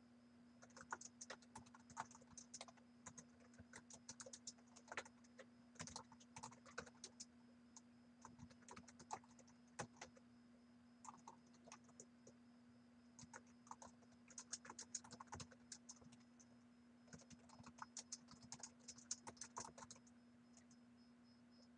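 Computer keyboard typing in quick bursts of keystrokes with short pauses, stopping a second or two before the end. A faint steady hum runs underneath.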